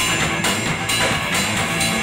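Live trio of electric guitar, electric bass and drum kit playing, the drums keeping a steady beat with cymbal strokes about twice a second.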